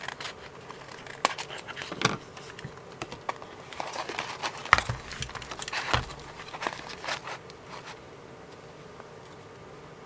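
Small craft scissors snipping stiff, Mod Podge-coated book paper, with the paper rustling. Then come a few sharp clicks and knocks as a plastic craft punch is picked up and fitted over the paper, the loudest about halfway through. The handling noises die away about two seconds before the end.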